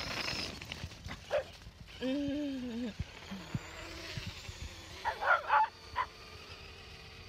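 A dog barking as it chases a remote-control car: one drawn-out call about two seconds in, then a quick run of sharp barks about five seconds in, over a steady hiss.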